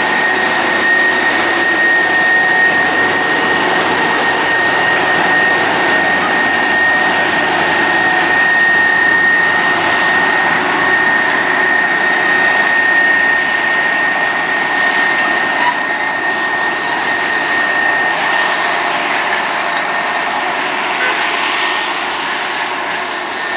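Network Rail multi-purpose stoneblower, a self-propelled track maintenance train, running past: a loud, steady engine and running noise with a steady high whine, growing quieter in the last few seconds as it draws away.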